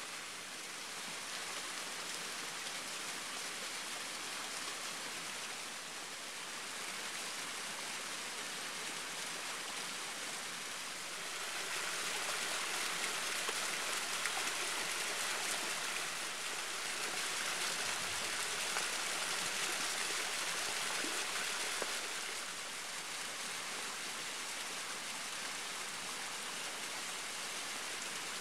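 Waterfall: a steady rush of falling water that grows louder for about ten seconds in the middle.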